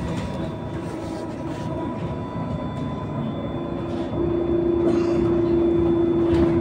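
Cabin noise of an electric bus on the move: road noise and drive hum, with a steady whine that comes in about four seconds in and holds one pitch.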